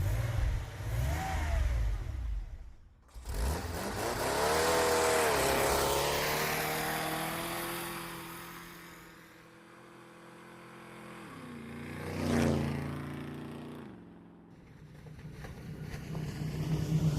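Car engine sound effects: after a brief gap an engine revs up, holds and fades, then a car passes by with a peak in loudness and a drop in pitch. After another short gap, another engine sound builds up near the end.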